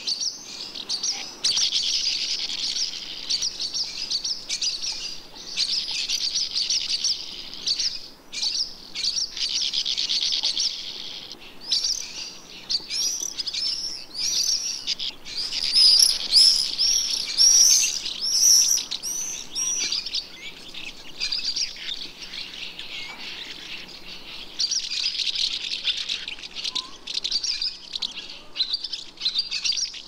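Dense chorus of small birds twittering and chirping, with a stretch of louder, shriller calls from about 12 to 19 seconds in.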